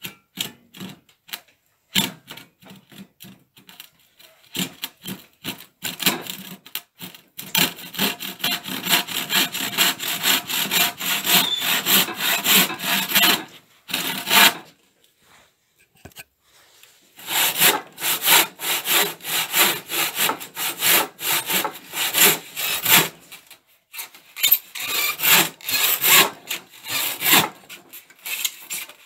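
Handsaw cutting a wooden board. It starts with scattered short strokes, then settles into a fast, steady back-and-forth run, stops for a couple of seconds about halfway, and resumes. The wood is very difficult to cut and tears out in big splinters.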